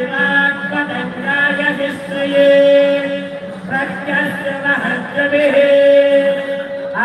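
Voices singing a devotional chant without instruments, in long drawn-out notes, two of them held longest about two and five seconds in.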